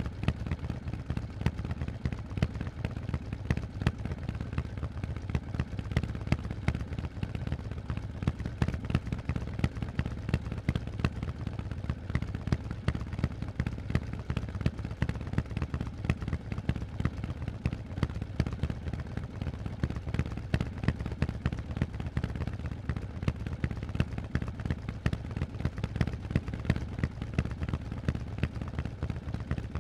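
Harley-Davidson Forty-Eight's air-cooled 1200 cc V-twin running through Vance & Hines aftermarket exhausts at a steady engine speed. The sound is a deep, even train of sharp exhaust pulses.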